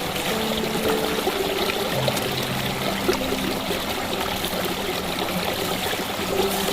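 A stream running and trickling, a steady rushing of water.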